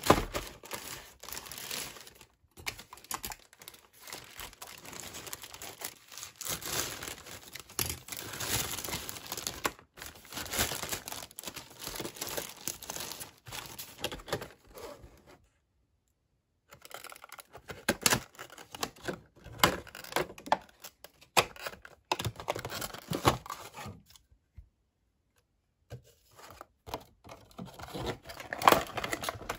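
Plastic packaging crinkling and tearing by hand: a plastic mailer bag and the clear plastic box of a mini USB desk vacuum being opened. After a short quiet stretch about halfway, the second half has sharper separate plastic clicks and rustles, twice broken by pauses.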